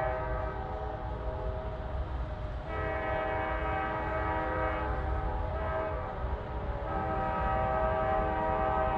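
Norfolk Southern freight locomotive's air horn sounding a multi-note chord in long held blasts, with a brief break about a third of the way in and the chord swelling again near the end, over a low rumble.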